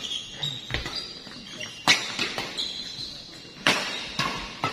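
Badminton rackets striking the shuttlecock in a rally, sharp cracks about one to two seconds apart that ring in a large hall, with short high squeaks and a few voices between the hits.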